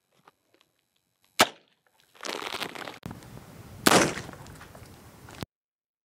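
A single gunshot from a Heritage single-action .22 revolver firing .22 Long Rifle, a sharp crack about a second and a half in. It is followed by a stretch of rushing noise with a second loud crack near four seconds, which cuts off abruptly.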